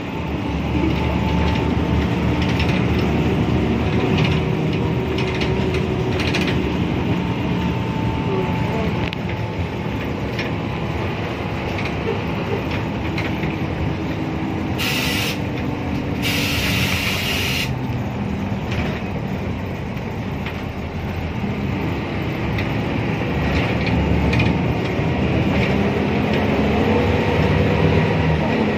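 Inside a moving Transjakarta bus: the engine and drivetrain run with a whine whose pitch drifts as the bus changes speed and rises near the end as it speeds up. About halfway through come two short bursts of hiss.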